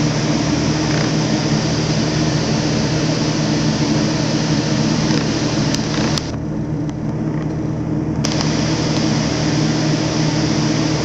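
Steady mechanical hum with a low drone, with a couple of faint clicks about six seconds in; the upper hiss drops out briefly after them.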